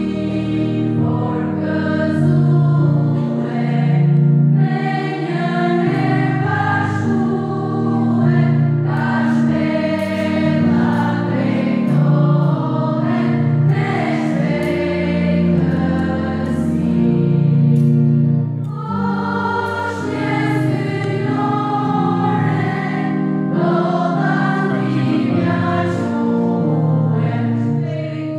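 A church choir singing a hymn, accompanied by an electronic keyboard that sustains low bass notes under the voices.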